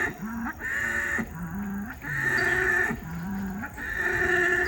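A bull bellowing over and over, each call a low note that breaks up into a higher, louder one, a little over once a second.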